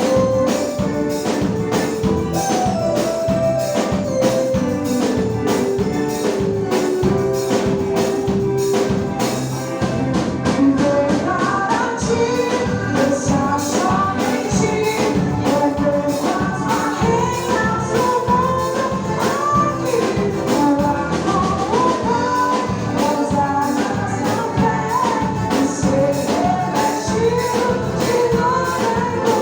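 A band playing a song: sung melody over a steady drum beat with bright, jingling percussion.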